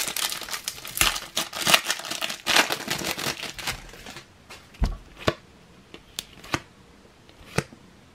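Foil wrapper of a Topps Cricket Attax trading-card pack being torn open and crinkled for about four seconds. This is followed by a few short clicks and taps as the cards are pulled out and handled.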